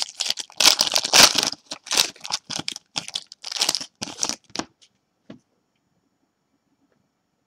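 Foil wrappers of Panini Prism basketball card packs crinkling and tearing as they are ripped open by hand, in a quick run of crackles that stops about two-thirds of the way through, then a single light tap.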